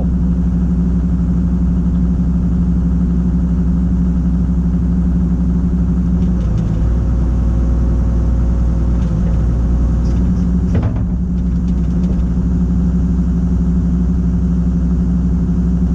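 Kobelco SK250 LC excavator's diesel engine running steadily at idle. A thin whine comes in from about six to ten seconds in, with a short clank near eleven seconds.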